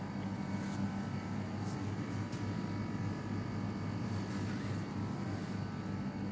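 A steady low mechanical hum, with a few faint clicks in the first couple of seconds.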